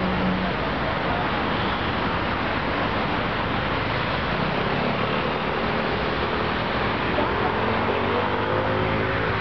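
Steady rush of distant road traffic from the city and highway below, with a faint pitched hum rising slightly in the second half.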